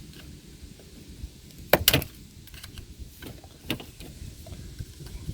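The old plastic gear shift knob of a 2016 Buick Verano being broken off to reach its hidden clip: a few sharp snaps and clicks, the loudest pair close together about two seconds in and two fainter ones a little later.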